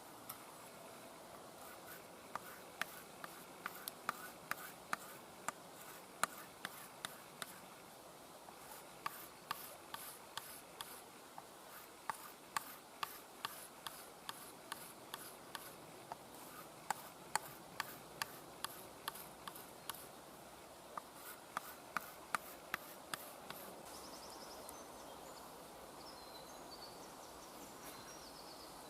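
Leatherman Signal knife blade being stropped on a piece of wood loaded with stone slurry: quick strokes with sharp clicks about twice a second, in three runs with short pauses between them.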